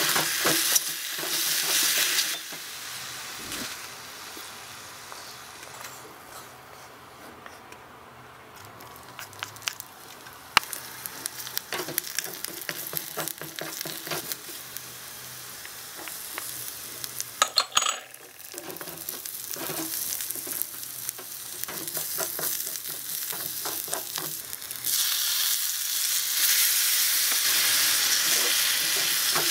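Mushrooms frying in a tiny metal pan on a working miniature stove, with a wooden spatula scraping and tapping the pan as they are stirred. The sizzle is loud at first, dies down to quiet stirring clicks in the middle, and comes back strongly near the end.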